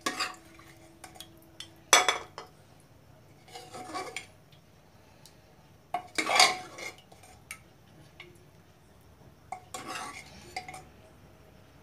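Metal ladle scraping and clanking against the inside of an aluminium pressure cooker as thick curry is scooped out, in about five separate strokes roughly two seconds apart, the loudest about six seconds in.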